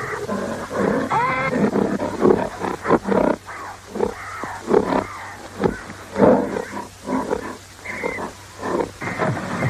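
Roars and grunts of two woolly rhinoceroses fighting, a film sound effect: loud, rough calls coming in quick succession, some rising and falling in pitch.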